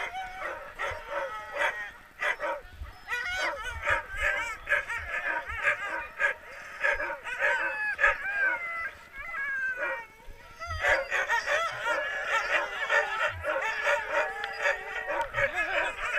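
A team of sled dogs (huskies) barking, yipping and howling together in a constant, overlapping clamour, with a brief lull about ten seconds in.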